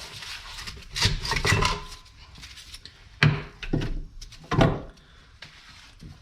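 Metal clunks and scrapes from rear brake parts being handled as the caliper and bracket come off: a scraping stretch about a second in, then three sharp knocks.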